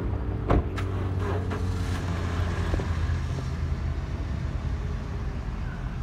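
Car engine idling with a low steady hum, heard from inside the car, with a sharp knock about half a second in and a few lighter clicks just after.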